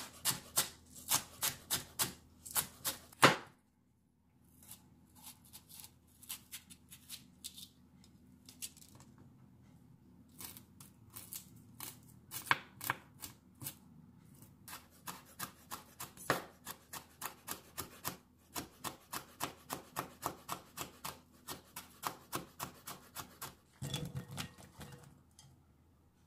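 Chef's knife chopping on a wooden cutting board. Quick, even strokes go through green onions for about the first three seconds. After a short pause come quieter, steady strokes slicing a red chili, about two or three a second, with a single soft thump near the end.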